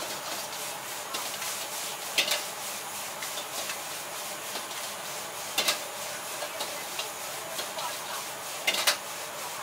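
Stir-frying in a wok over a high gas flame: a steady sizzle and burner hiss. The metal ladle strikes the wok with sharp clangs about two, five and a half, and nine seconds in.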